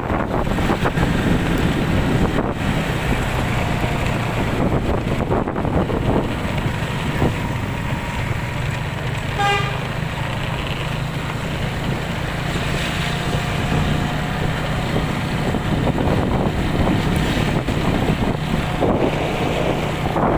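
Steady low engine hum under wind noise, with one short horn toot about halfway through.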